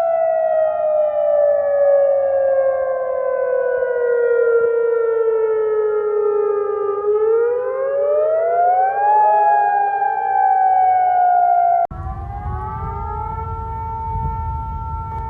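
Civil defense siren wailing: its pitch slides slowly down for about seven seconds, rises over about two seconds, then falls again. About twelve seconds in it cuts abruptly to a second siren holding a steady tone over a low rumble.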